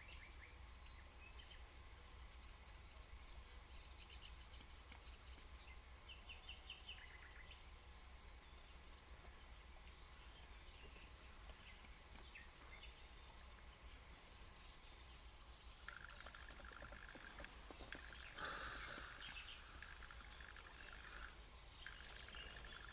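Faint natural ambience carried by a cricket chirping steadily, a high-pitched pulse about twice a second. About two-thirds of the way through, a lower rattling trill starts and comes and goes, with one brief louder burst in the middle of it.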